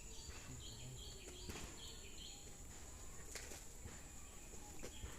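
Rural outdoor ambience: a steady, high insect drone with short bird chirps in the first couple of seconds, and a few faint clicks.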